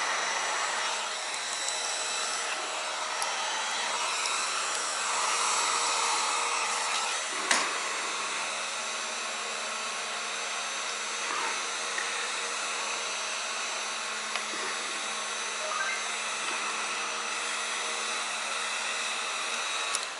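A small motor running steadily with a rush of air, with one sharp click about seven and a half seconds in.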